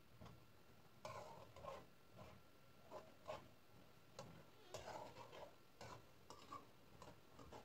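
Metal spoon scraping and clicking against a stainless-steel karahi while stirring black chickpeas, in faint, irregular strokes.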